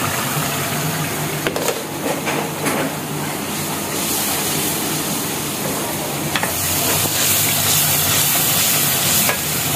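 Spiced onion-tomato masala sizzling in a wok over a gas flame, stirred with a wooden spatula that knocks lightly against the pan a few times. The sizzle gets louder about halfway through.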